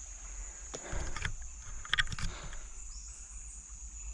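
A few sharp knocks and scuffs from someone moving on a fallen tree trunk, about a second in and again near two seconds in, over a steady high-pitched insect drone.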